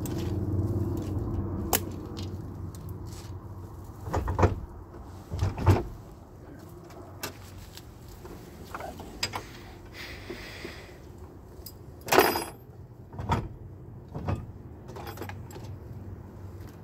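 Metal clanks and chain rattles from a boat trailer's hitch and safety chains being unhooked from a pickup truck's hitch, about five sharp knocks with the loudest near the middle. A low steady hum sounds for the first few seconds and then fades.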